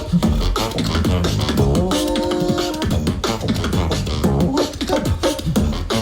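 Beatboxing: a fast, dense rhythm of vocal drum sounds over a deep bass, with a pitched note held for about a second around two seconds in.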